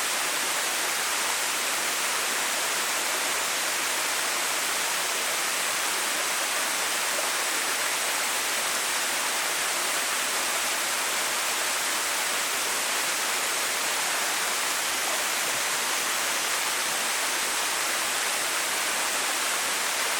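Water of a small waterfall, about 6 m high, pouring steadily into its pool: an even, unbroken rush with most of its weight in the higher range.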